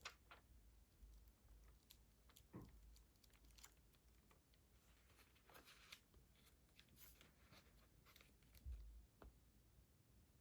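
Near silence with faint, irregular taps of typing on a computer keyboard.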